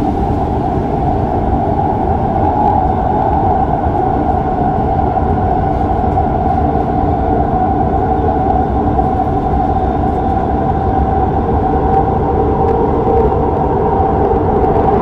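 Shinbundang Line subway train running at speed through a tunnel: a steady rumble with an even hum over it.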